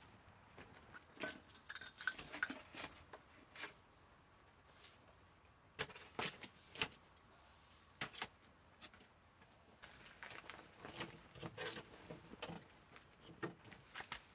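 Scattered metal clicks, clinks and knocks of a folding camp table being opened out and its metal frame and legs handled, in a string of separate short sounds with quiet gaps between them.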